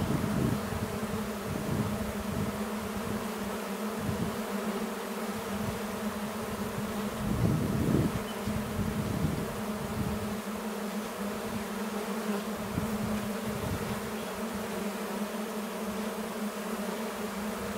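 Many honeybees buzzing in flight, a steady hum that swells briefly about seven seconds in.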